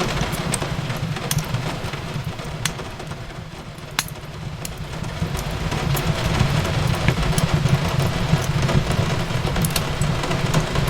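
Fireplace crackling: scattered sharp pops and snaps over a steady low rumble of the fire, with a sharp pop about four seconds in standing out. A steady hiss of rain on a window runs underneath.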